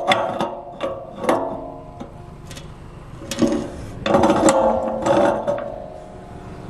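Pipe wrench turning a brass pipe fitting off an old metal tank: metal clanks and knocks that ring on, with a longer stretch of metallic ringing and scraping about four seconds in as the threads turn.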